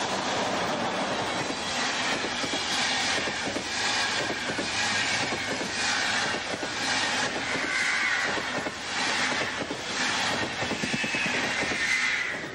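Passenger coaches of an Intercity train behind a DB class 103 electric locomotive rolling past close by, their wheels clattering over the rail joints in a steady rhythm. A high wheel squeal rises and falls in the curve during the second half, and the sound cuts off suddenly at the end.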